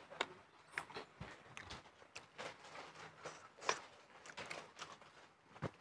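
Scattered light clicks and taps of people eating: spoons and fingers against plates and bowls, and plastic water bottles being handled, with a sharper click about four seconds in and another near the end.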